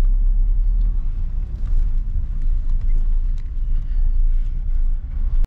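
Steady low rumble of car cabin noise, engine and road, inside a car moving slowly through city streets.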